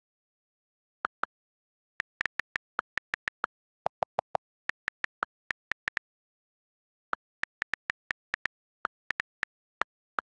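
iPad on-screen keyboard key clicks as a message is typed: about thirty short taps in uneven runs, with pauses between them. A few clicks with a lower, different tone come about four seconds in.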